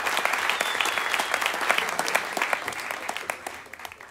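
Live concert audience applauding after a song, dense clapping that fades away over the last second and then cuts off.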